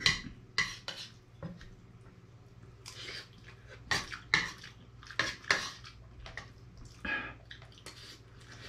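Eating utensils clinking and scraping against a plate during a meal: about a dozen short, irregular clicks.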